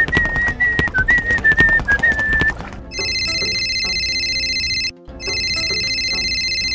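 Background music with a whistled tune over clicking percussion, then about three seconds in a phone ringtone sounds in two long, steady rings of about two seconds each, with a short break between them.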